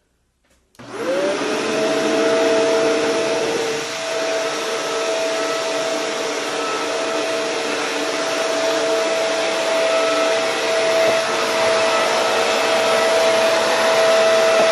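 Shark Rotator NV752 upright vacuum cleaner switched on about a second in, its motor spinning up with a short rising whine and then running steadily on its hard floor setting.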